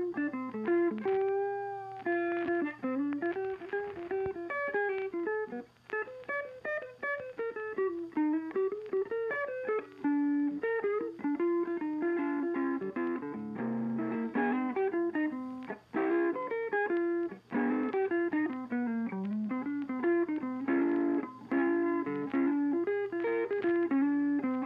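Instrumental background music: a guitar plays a busy melody of quick plucked notes over a steady low note.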